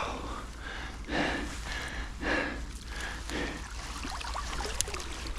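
A man's heavy breathing, about one breath a second, with a short sharp click near the end.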